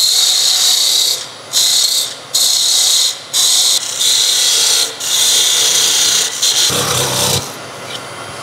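Parting tool cutting into a spinning wooden piece on a lathe: a loud, high hissing cut in several strokes about a second long with short breaks between them. Near the end there is a short lower rumble as the piece is parted off into the hand.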